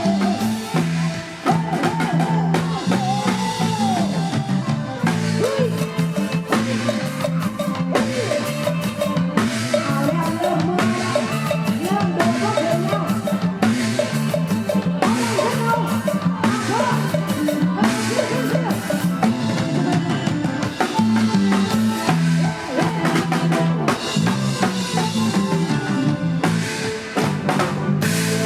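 Isan-style live band music with a drum kit keeping a steady beat under a bass line and a gliding melody line.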